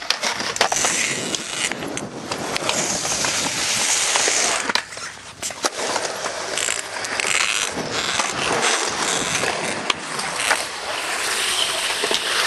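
Skateboard wheels rolling over rough concrete, with scattered sharp clacks and knocks of the board hitting the ground and ledge.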